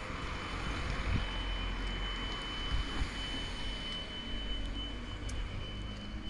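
Steady outdoor traffic noise, a hiss that swells a little and eases off, with low rumbling puffs of wind on the microphone and a faint constant high tone.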